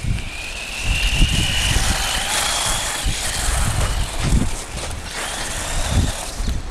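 Electric RC car's motor whining, rising in pitch over the first second and a half as it accelerates, then holding a high steady pitch, over the hiss of its tyres on icy snow. Gusts of wind rumble on the microphone.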